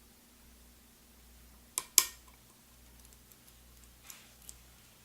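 Metal lock pick and tension tool working the discs inside a MIWA U9 sidebar lock: two sharp clicks close together about two seconds in, the loudest thing here, then faint ticks and a brief scrape.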